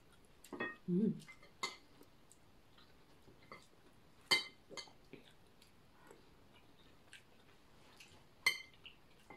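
A metal spoon and fork clink against a glass bowl and plates during a meal. There are a few separate clinks, the sharpest about four and eight seconds in, and a short vocal sound about a second in.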